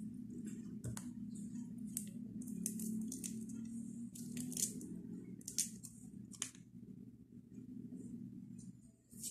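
Kitchen knife peeling garlic cloves on a wooden chopping board: short, irregular clicks and scrapes of the blade against the cloves and board, with a sharp click near the end, over a steady low hum.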